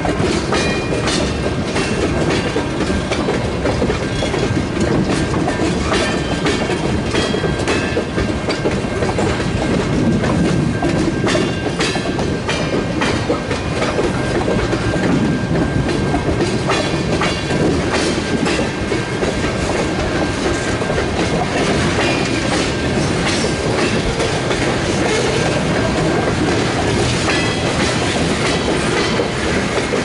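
Freight train cars, tank cars and covered hoppers, rolling steadily past: a continuous rumble with the clatter of wheels over rail joints, and a thin steady wheel squeal through the first half.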